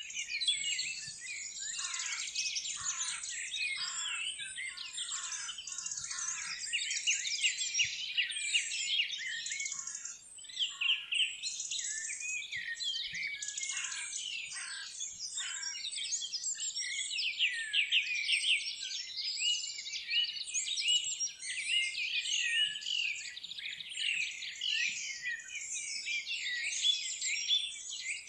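Many birds singing and chirping at once: a dense, continuous chorus of high, quick chirps and trills, with some calls sweeping down in pitch.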